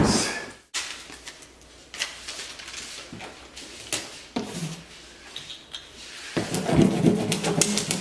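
Fragile stickers peeled off their roll and pressed and rubbed onto a cardboard box: scattered crinkles and taps, then a busier stretch of paper rubbing and crackling near the end.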